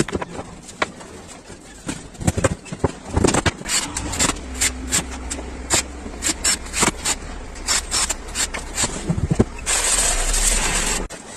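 Repeated sharp knocks and clicks. A low steady motor hum comes in about four seconds in, and a loud rushing noise near the end cuts off suddenly.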